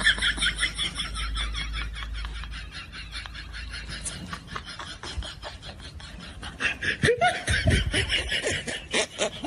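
Laughter in quick repeated bursts, with a short pitched vocal sound about seven seconds in.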